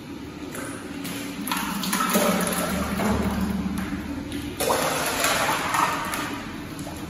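Shallow water sloshing and splashing on the floor of a drained concrete cistern, swelling in uneven surges, over a low steady hum.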